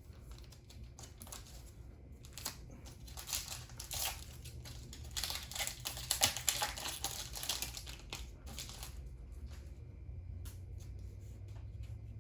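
A foil trading card booster pack crinkling as it is torn open and handled, with irregular rustling that is busiest in the middle.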